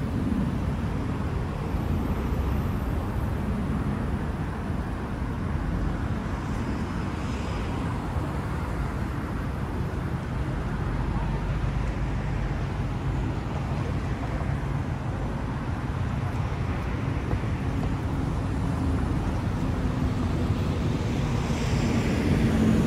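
Steady city street traffic noise: cars running past on the road with a constant low rumble. One vehicle passes louder near the end.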